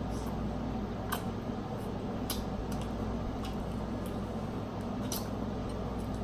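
Close-up eating of a seafood boil: wet, squishy chewing and handling of sauce-covered shrimp and snow crab, with a few sharp clicks, over a steady low hum.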